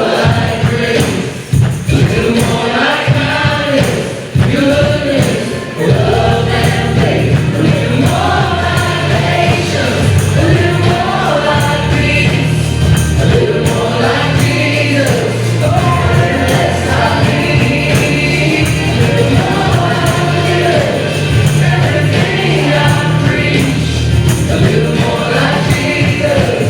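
Christian worship music: several voices singing together over a band, with a strong steady bass coming in about six seconds in.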